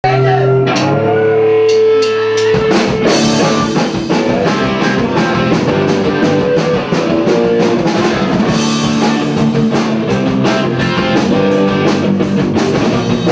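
Live rock band music: a held chord for the first couple of seconds, then about two and a half seconds in the drums and guitar come in with a steady beat.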